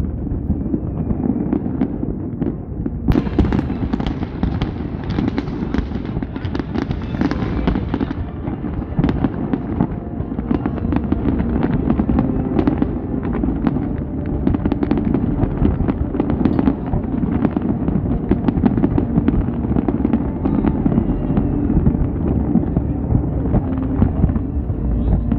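Large fireworks display: a continuous barrage of rapid bangs and crackles from many shells bursting at once, over a low rumble, growing fuller about three seconds in.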